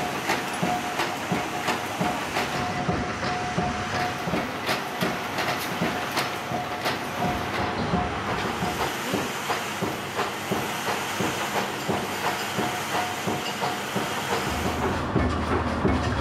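Factory wire-processing machinery running, with a steady rhythmic clatter of about two to three knocks a second. A steady whine runs under it and stops about two-thirds of the way in.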